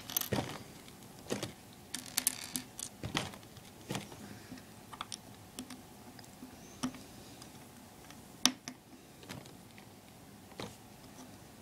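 Small plastic LEGO pieces clicking and tapping as they are handled and pressed together. The clicks are scattered and irregular, and the sharpest comes about eight and a half seconds in.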